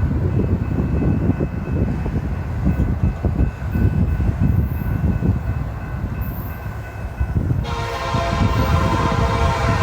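Union Pacific SD70ACE diesel locomotive rumbling by with its train, then its air horn sounds a loud multi-note chord about seven and a half seconds in and holds to the end.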